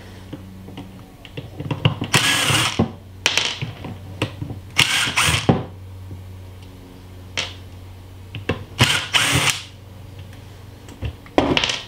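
Cordless drill/driver running in several short bursts, backing out the screws that hold the gear head on an angle grinder.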